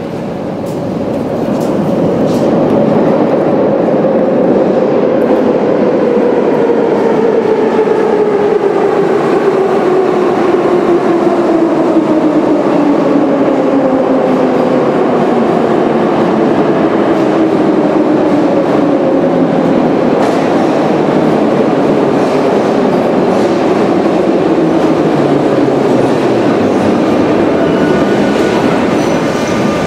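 Moscow metro train pulling into the station, its motors whining in a long falling pitch as it brakes, over wheel and rail noise. Another falling whine follows in the second half, as a train arrives at the other track.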